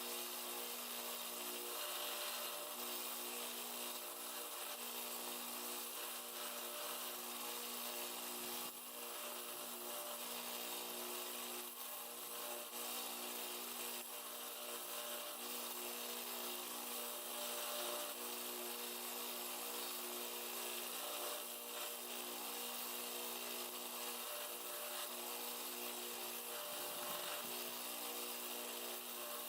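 Power sander running steadily while it grinds down armadillo-shell knife handle scales, a motor hum under a constant abrasive hiss.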